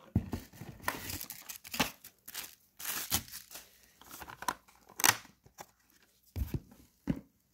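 Plastic packaging of gel polish bottles being handled and rummaged by gloved hands: irregular crinkling, scraping and clicking with short pauses.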